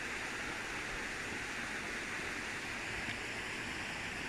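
Steady rushing of river water, running high after a lot of rain.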